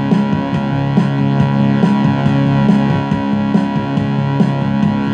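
Instrumental music from a four-track arrangement of drums, bass and keyboards: sustained keyboard chords over a bass line, with drums keeping a steady beat of about two hits a second.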